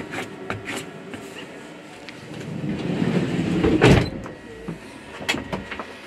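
Mercedes Sprinter van's sliding side door rolled along its track and shut with one loud thud about four seconds in, with a few light knocks before and after.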